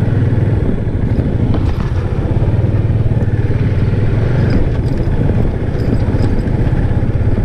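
Motorcycle engine running steadily with an even low throb.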